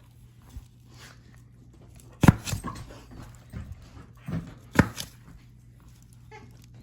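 Two sharp knocks about two and a half seconds apart, with a few softer ticks, over a steady low hum.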